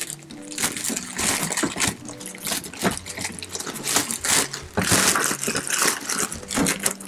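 Clear plastic bag crinkling and rustling in irregular crackles as it is handled and pulled at around an RC car's body shell.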